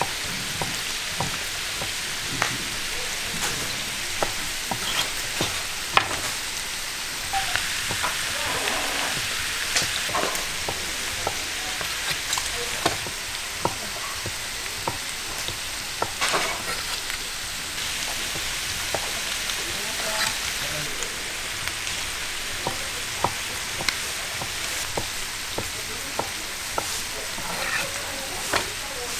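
Pork offal sizzling on a flat iron griddle as it is stirred and turned, a steady frying hiss broken by frequent sharp clicks and scrapes of metal spatulas on the plate.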